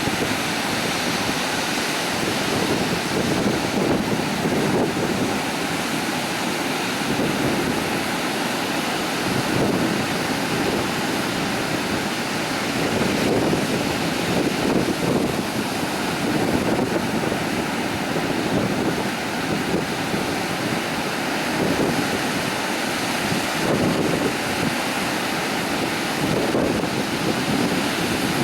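Ocean surf washing onto a beach in a steady, swelling noise, with wind buffeting the microphone.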